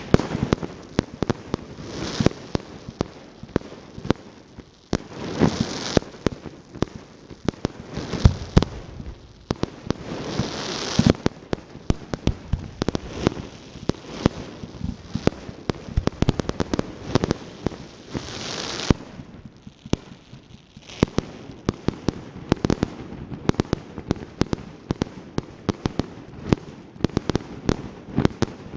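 Fireworks display: a dense, irregular run of sharp bangs and pops from bursting shells, with several spells of loud hissing and some crackle.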